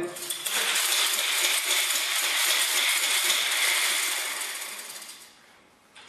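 Paint brush spun in a pump-action brush and roller spinner inside a plastic five-gallon bucket, flinging water off the bristles against the bucket walls with a steady hissing whir. The whir fades out about four to five seconds in as the spin slows.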